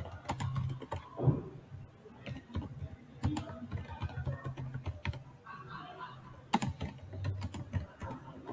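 Typing on a computer keyboard: irregular runs of key clicks as words are typed.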